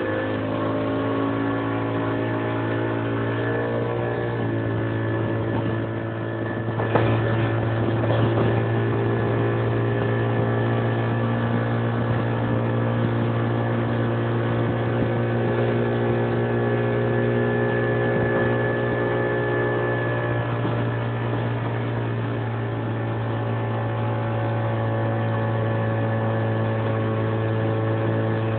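Motorboat engine running steadily at towing speed, with its pitch shifting a little early on. A brief louder rush of noise comes about seven seconds in.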